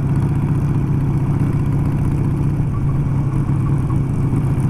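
Harley-Davidson V-twin motorcycle engine running at a steady cruise on a dirt road, a low, even note that holds without change.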